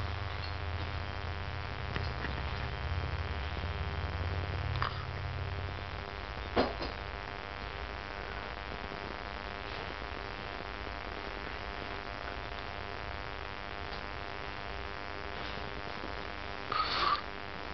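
A sleeping boy's low snoring fades out over the first six seconds, leaving a steady electrical hum. A few short sleep noises break in: a sharp one about six and a half seconds in and a brief burst near the end.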